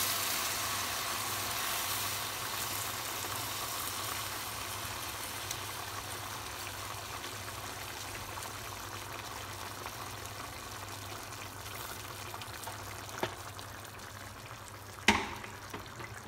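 Boiled water pouring in a steady stream into a hot stainless pan of sautéed chicken pieces, hissing and sizzling and slowly getting quieter. A sharp knock near the end.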